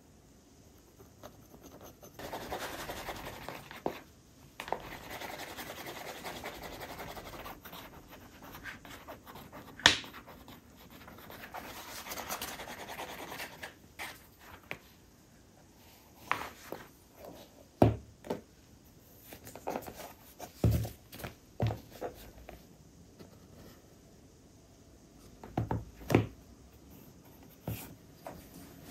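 Handcraft work: several stretches of steady rubbing or scraping strokes, then a run of light knocks and clicks as tools and pieces are handled.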